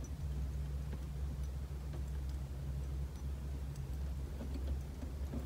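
Faint small clicks and taps of metal and plastic as the ignition switch is worked loose by hand from a van's steering column, over a steady low hum.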